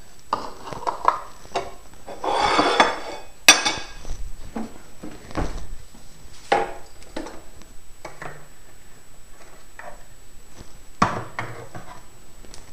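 Kitchen handling sounds: a ceramic plate and cutlery knocked and set down on a countertop, a string of scattered clicks and knocks, with a short rustling stretch a couple of seconds in.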